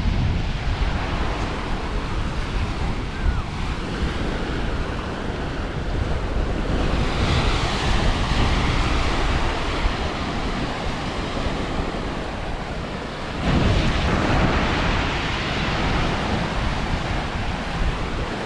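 Sea waves washing onto the shore, with wind buffeting the microphone. The surf swells about seven seconds in and again, more loudly, about thirteen seconds in.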